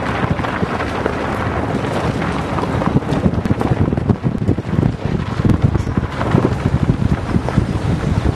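Wind buffeting the camera microphone in uneven gusts, a loud rough rush.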